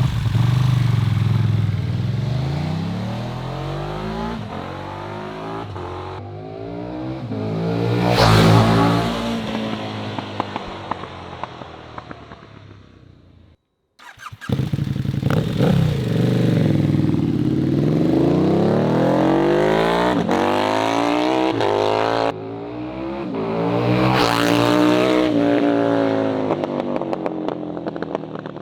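KTM 1290 Super Duke R's 1301cc V-twin through a full titanium Austin Racing exhaust, running hard as the bike passes, swelling louder and then fading away. This happens twice, with a sudden cut to silence about halfway through.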